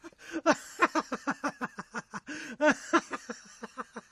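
Laughing sound effect: a quick run of short, pitched giggling syllables, about four or five a second.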